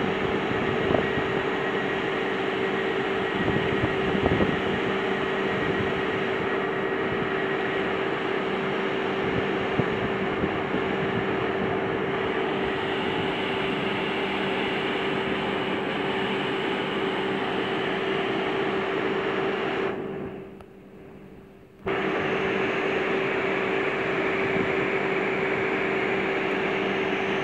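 Pesa Dart (ED161) electric multiple unit humming steadily close by: an even noise with a constant tone in it, no rising or falling pitch. The sound briefly drops away about twenty seconds in and then returns.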